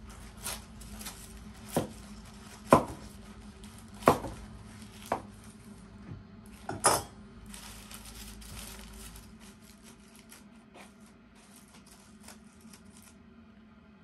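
Kitchen knife clinking against a metal baking tray as a whole baked fish is cut into portions, about six sharp clinks in the first seven seconds. Softer scraping of the knife in the foil-lined tray follows and fades near the end.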